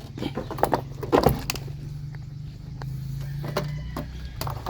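Knocks and clunks of a new car battery being lifted and set down into the engine-bay battery tray, the loudest about a second in and a few lighter ones later, over a steady low hum.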